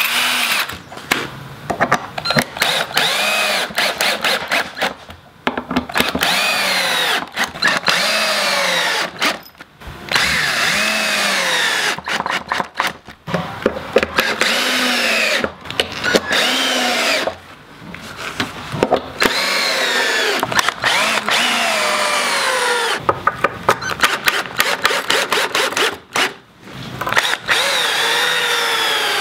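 Cordless drill driving screws into rough-sawn wooden boards. About a dozen screws in a row; for each one the motor whine rises and then falls in pitch, with short breaks and clicks between screws.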